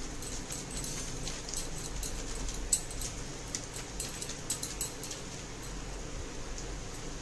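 Hot oil sizzling and crackling as arsa pitha (rice-flour and jaggery cakes) fry, with irregular sharp pops over a steady hiss.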